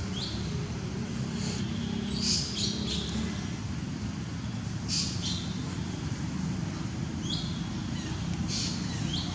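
Short, high-pitched animal chirps, about eight of them spread irregularly, some gliding down in pitch, over a steady low hum.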